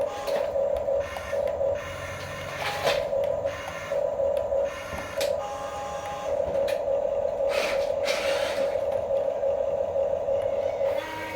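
Small electric motors and plastic gearboxes of a radio-controlled toy construction vehicle whining, starting and stopping in short bursts as it is driven. There are a few knocks and a brief scraping rush about eight seconds in.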